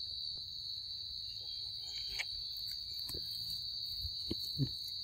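Steady high-pitched drone of insects in the undergrowth, with a few faint clicks and two short falling calls from the monkeys near the end.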